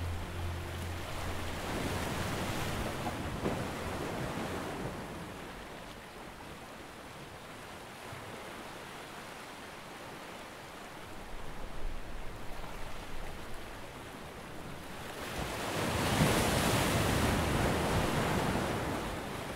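Sea surf: a steady wash of wave noise that swells twice, about two seconds in and again near the end, with a brief crackly stretch in between.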